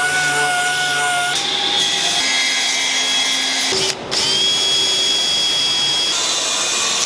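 An air-powered orbital sander running with a steady high whine on a wooden board. After quick cuts it gives way to a cordless drill-driver spinning steadily as it drills into the corner of a wooden box.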